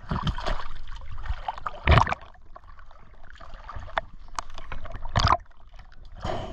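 River water sloshing and splashing close to the microphone as a person wades through it, with louder splashes about two seconds and five seconds in.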